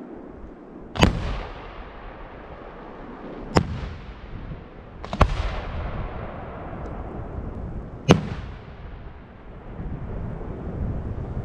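4-inch aerial display firework shells going off: four sharp bangs, about one, three and a half, five and eight seconds in, each trailing off in a rolling echo.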